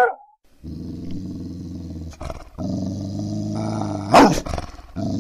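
German Shepherd growling in two long, low rumbles, broken by a single loud, sharp bark about four seconds in, then growling again near the end.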